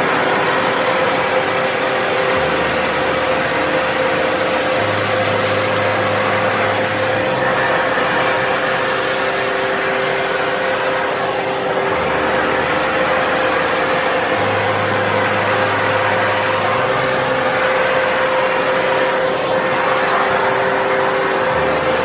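Kärcher WD3 wet-and-dry vacuum cleaner running steadily at full suction, a loud rushing hiss with a constant motor whine, as its floor nozzle works over carpet. Background music with a slow-changing bass line plays underneath.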